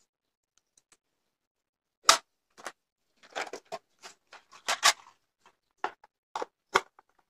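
A series of sharp clicks and knocks from hand tools and a plastic extension-board reel and plug being handled and set down. The loudest comes about two seconds in, a quick cluster follows, and there are three more near the end.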